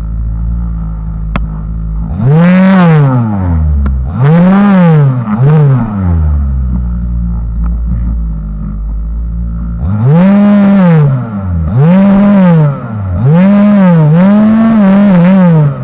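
Two-stroke Lynus MLY-55 gasoline chainsaw at a low idle, blipped up to full throttle and back about six times. There is a longer idle stretch in the middle. The later full-throttle runs hold with small dips in pitch.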